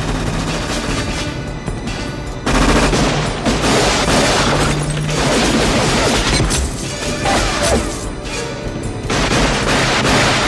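Action film soundtrack: score music, then about two and a half seconds in, a dense burst of gunfire over the music that runs until near the end.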